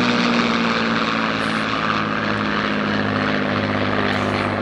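A Supermarine Spitfire and an F-16 jet fly past together in formation. The Spitfire's piston engine drones under a rushing jet noise, and the engine tone eases slowly down in pitch as they pass.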